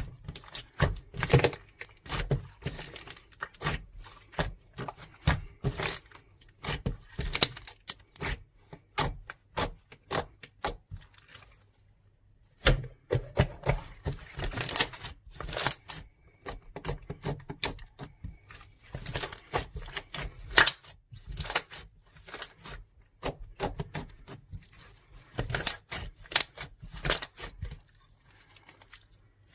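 Rapid, irregular clicking, crinkling and tearing-like crackles from something being handled close to the microphone, with a short pause about twelve seconds in.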